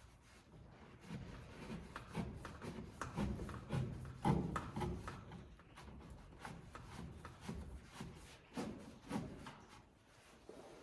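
Irregular knocks, clicks and rubbing of hands-on handling work, with one louder thump about four seconds in.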